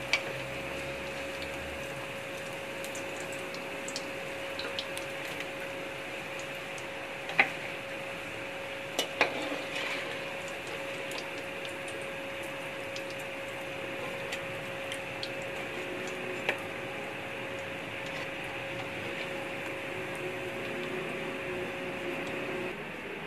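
Samosas deep-frying in hot oil in a wok, a steady sizzle with an even tone beneath it that stops near the end. A few sharp metal clicks from the slotted skimmer against the pan, the loudest about seven and nine seconds in.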